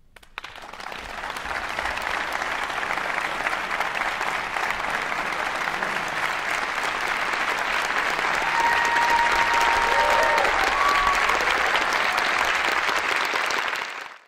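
Large audience applauding after a choral piece ends: the clapping swells over the first two seconds, holds steady, then cuts off abruptly near the end.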